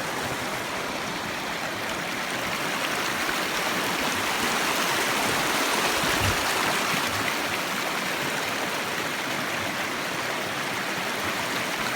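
Steady rush of flowing stream water, an even hiss with no pauses.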